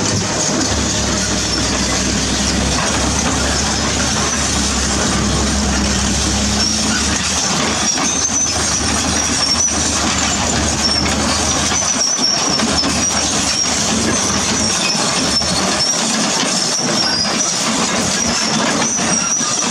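Crawler excavators working: a Volvo EC210B and a Komatsu PC210, their diesel engines running steadily. The steel tracks clank, and from about a third of the way in a high wavering squeal from the track links joins in as the Volvo travels over rubble.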